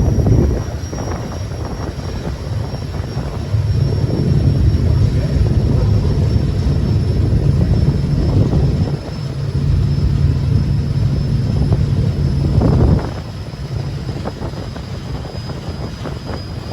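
A ferryboat's engine drones as it gets underway, with a low rumble that swells and drops off several times, loudest in the middle stretch.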